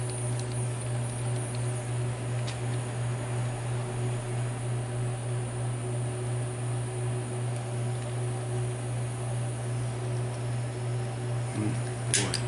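Steady low machine hum, like a fan or motor running, with a faint higher tone over it. A single sharp click about twelve seconds in.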